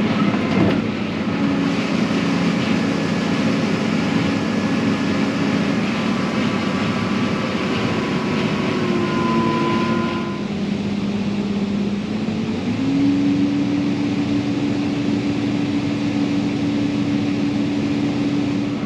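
Tractor engine running steadily under load, with a rushing noise over it that fades about halfway through; the engine note steps up a little about two-thirds of the way in.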